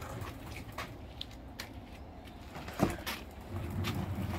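Small casters of a wheeled dolly rolling over a concrete path under a heavy flat-packed cabinet box, a low rumble with scattered clicks. A sharp knock comes about three seconds in, and the rolling rumble grows louder near the end.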